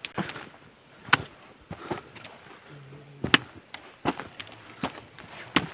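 Footsteps on a stony mountain trail: sharp crunching footfalls, about one a second, six or so in all.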